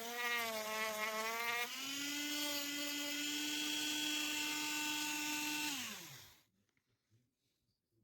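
Small electric power tool motor whining, its pitch wavering as it works the wood, then running steadily from about two seconds in. Near the end it is switched off and winds down to a stop.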